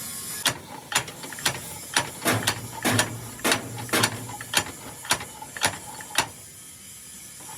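Sharp metallic clicks or taps at an even beat of about two a second, from a mechanism or tool being worked on a hydraulic jack, stopping about six seconds in.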